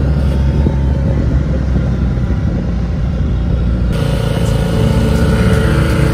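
Small outboard motor running steadily under way on an inflatable boat, with wind and water noise. The sound changes about four seconds in.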